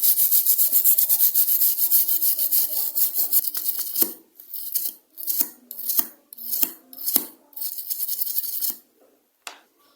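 A brush scrubbing a freshly soldered circuit board with cleaner: quick back-and-forth strokes at first, then from about four seconds in slower separate strokes, stopping near the end.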